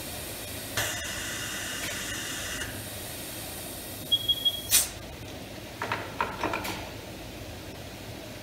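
Compressed air hissing from an air hose held at the tire's valve for about two seconds. Then a short electronic beep, a sharp click, and a few light metallic clinks.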